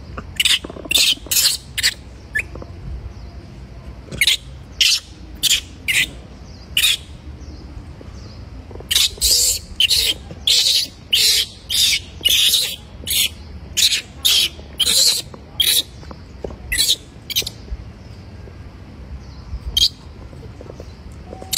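Newborn macaque crying: a long run of short, shrill, high-pitched squeals, coming in bursts of several calls with short pauses between.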